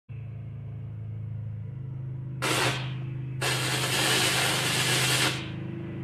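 Arc welding: a brief burst of crackling, hissing arc noise, then a longer weld of about two seconds, over a steady low hum.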